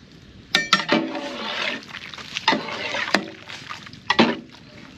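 Clinks of metal kitchenware against a pot of hot milk, a pair of ringing clinks early on and single ones about three and four seconds in, with liquid swishing and sloshing in between as the milk is handled.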